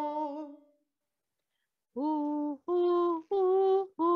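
A woman singing a vocal warm-up exercise. A held note fades out, there is a short pause, then she sings four short held notes of about half a second each, at nearly the same pitch.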